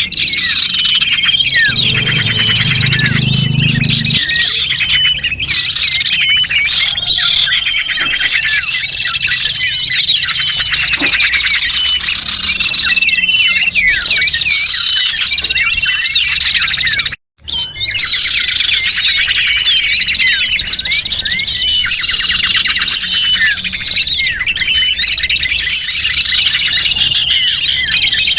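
A dense chorus of small songbirds chirping and twittering without pause: a bird-lure (pikat) recording for small birds. There is a brief, sudden break in the sound a little past the middle.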